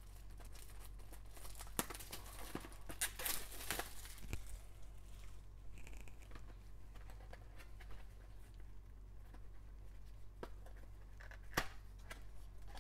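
Plastic shrink wrap being torn and crinkled off a cardboard trading-card box, with crackling bursts about two to four seconds in. The box is handled and opened, with a sharp click near the end.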